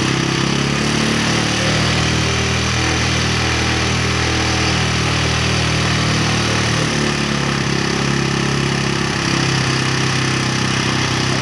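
Suzuki GS125 single-cylinder four-stroke motorcycle engine idling steadily; its note shifts about seven seconds in. The engine has been misfiring and hard to start, a fault traced to the air-mixture setting.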